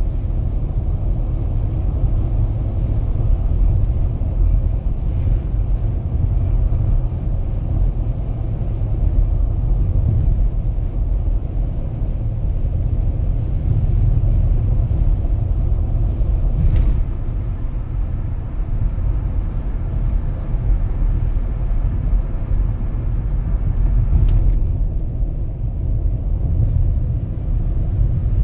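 Steady low rumble of a car's road and engine noise heard inside the cabin while driving at highway speed.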